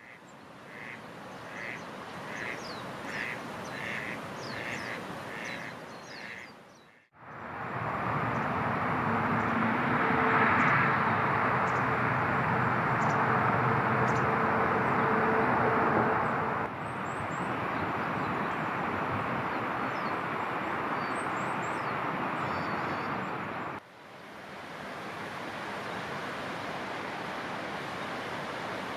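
A bird calling repeatedly, about two calls a second, for the first several seconds. After a sudden cut, a loud steady rushing noise with faint high chirps over it, then another cut about three-quarters of the way through to a quieter steady rushing noise.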